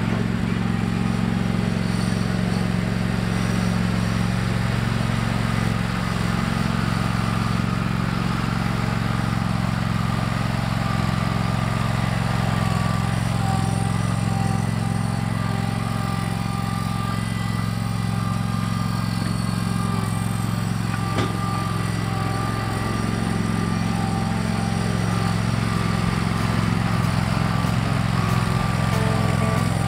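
John Deere 318 garden tractor's two-cylinder engine running steadily under load as it pulls a box scraper over loose dirt, growing a little louder near the end.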